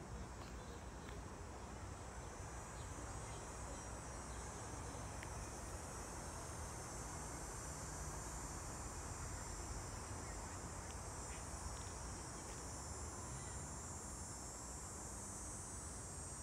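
Steady, unbroken high-pitched drone of summer insects in the trees, over a low background rumble.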